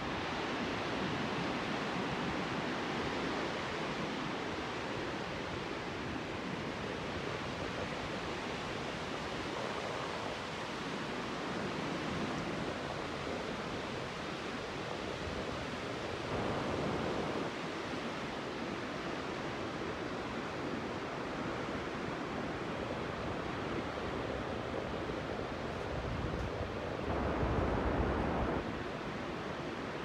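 Pacific Ocean surf breaking on a sandy beach: a steady, continuous rushing wash. Twice, about halfway through and again near the end, a brief louder low rumble rises over it.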